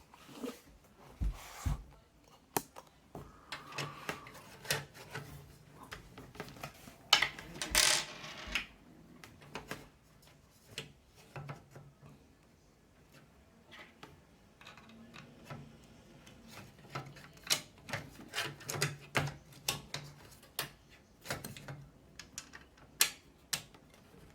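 Irregular clicks, taps and short rattles of a plastic case fan and small screws being handled against a metal PC case as the fan is fitted, with a louder scraping rustle about seven to eight seconds in.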